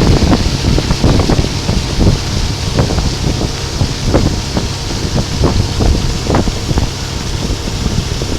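Heavy wind noise buffeting the microphone in uneven gusts on a motorboat under way, over the low rumble of the boat running across the water.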